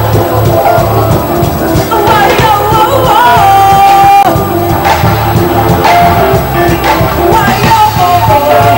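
Live band music, amplified, with a steady beat under a singing voice; the melody holds one long note about three seconds in.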